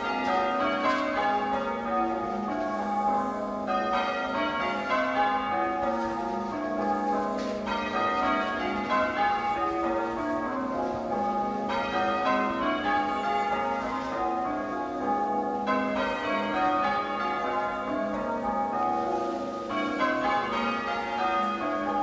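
Church bells change ringing, a peal in progress: the bells strike one after another in a continuous, even rhythm, the notes ringing on into each other.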